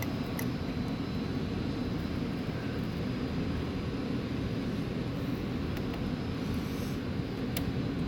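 Steady low rumble of HVAC air-handling equipment running, with a couple of faint clicks from wire connectors being handled.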